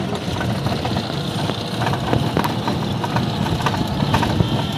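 Auto-rickshaw driving along a road: a steady low rumble of the running vehicle and road noise, with frequent small rattles and clicks from its body.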